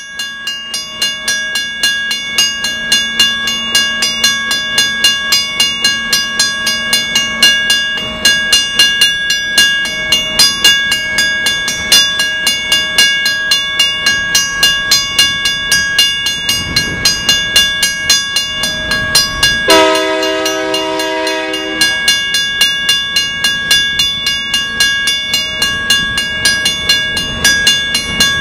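Grade-crossing warning bell ringing steadily in regular strokes about twice a second as a freight train approaches. One diesel locomotive horn blast of about two seconds sounds about twenty seconds in.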